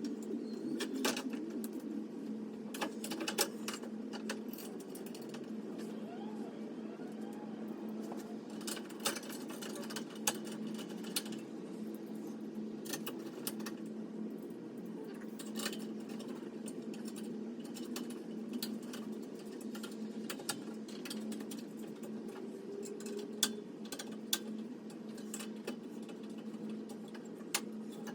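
A steady low hum with scattered sharp clicks and light knocks throughout.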